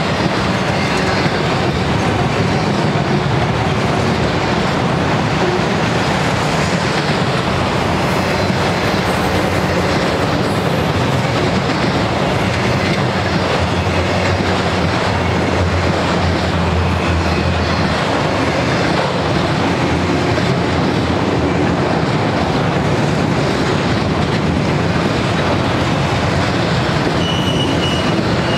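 Multi-level auto-rack freight cars rolling past: a steady, loud rumble and clatter of steel wheels on rail.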